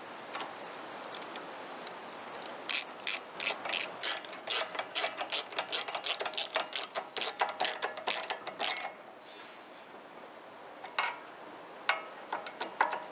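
Socket ratchet clicking as the carburetor mounting bolts are tightened down: a run of quick clicks, about three to four a second, for some six seconds, then a pause and a few more clicks near the end.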